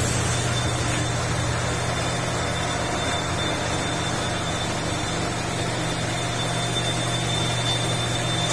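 Steady hum of machine-shop machinery running on electric motors: a low drone with a faint high whine over it, unchanging throughout.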